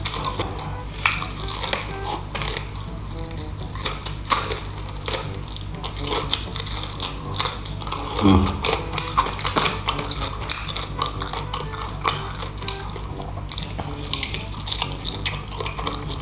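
Close-miked eating of fried chicken: crackly crunching and chewing with many sharp wet mouth clicks and smacks, one heavier thump about eight seconds in, over a steady low background.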